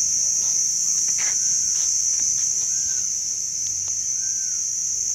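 Steady, high-pitched insect chorus. A short rising-and-falling call sounds four times, about every one and a half seconds.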